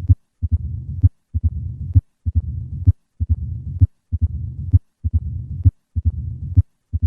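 Heart sounds of mitral stenosis as heard through a stethoscope, about one beat every 0.9 seconds. Each beat has sharp, snapping heart sounds and a low-pitched, rumbling diastolic murmur.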